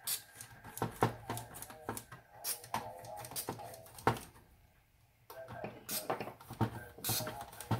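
Short spritzes of DeoxIT D5 contact cleaner from an aerosol can through its red extension straw, sprayed into a radio's tone potentiometers, mixed with clicks and taps as the controls and circuit board are handled.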